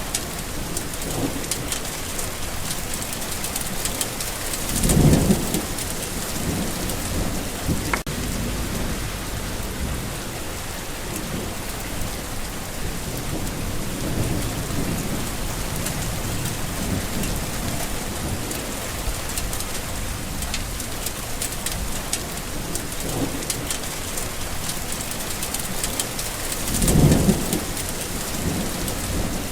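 Steady, heavy rainfall with two low rumbles of thunder, one about five seconds in and one near the end.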